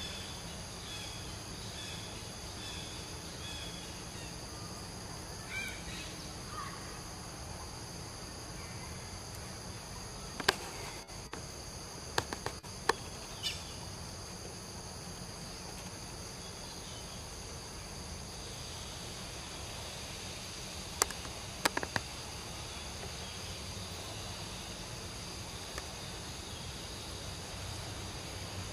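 Steady high-pitched buzzing of an insect chorus over outdoor background noise, with faint short chirps in the first few seconds. A few sharp clicks stand out about ten seconds in and again about twenty-one seconds in.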